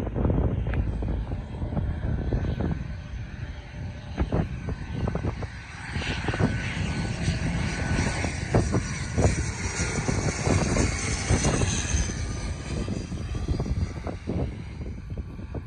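ATR 72-600 turboprop's PW127M engines and propellers running as the airliner passes low overhead on final approach, fullest about midway and easing off near the end as it reaches the runway. Wind buffets the microphone throughout.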